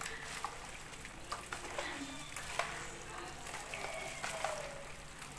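Food sizzling and crackling on a barbecue grill, with scattered sharp pops over a steady hiss and faint voices in the background.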